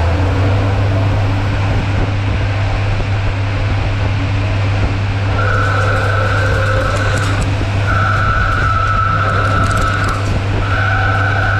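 Mori Seiki ZL-25 CNC lathe running with a steady low spindle hum. From about five seconds in, a boring bar cuts inside the bore of the spinning metal hub, giving a steady high-pitched tone in three passes of about two seconds each, with coolant spray hissing over it.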